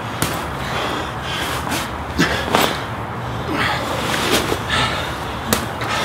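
Repeated sandbag power cleans: short slaps and thuds of the sandbag being caught and set down, about once a second, mixed with sharp exhalations and grunts of exertion.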